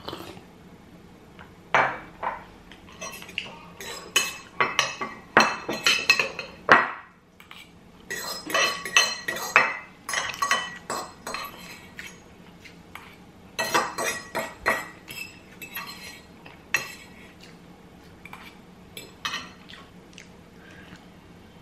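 A metal fork scraping and clinking against a square bowl, gathering up the last of the couscous, in runs of quick scrapes separated by short pauses, thinning out toward the end.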